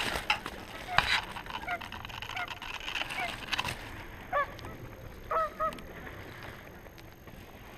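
Geese honking: a scattering of short honks, with a couple of paired honks a little past the middle, and a few sharp clicks in the first half.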